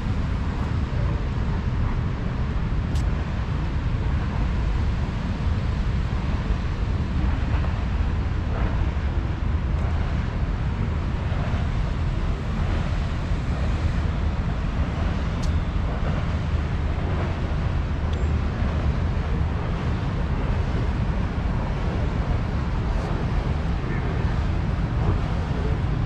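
Steady outdoor street ambience: a continuous low rumble of wind on the microphone over distant traffic.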